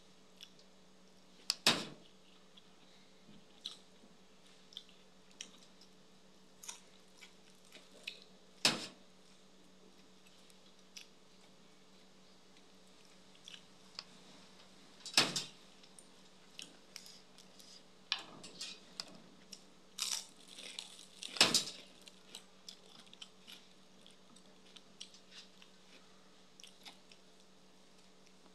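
Close-up sounds of a person eating: chewing with crisp crunching bites and small mouth clicks, the loudest crunches about 2, 9, 15 and 21 seconds in. A faint steady hum runs underneath.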